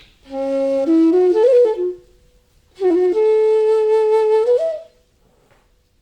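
Bansuri bamboo flute played solo: a short phrase that climbs by steps from a low note and falls back, then, after a brief pause, a long held note that lifts at its end.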